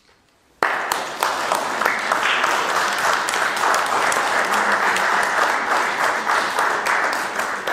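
Audience applauding, starting suddenly about half a second in.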